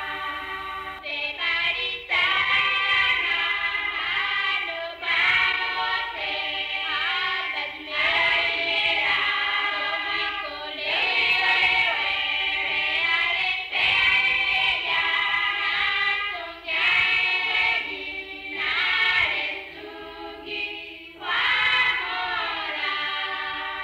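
Choir singing in phrases of a few seconds each, with short breaks between them.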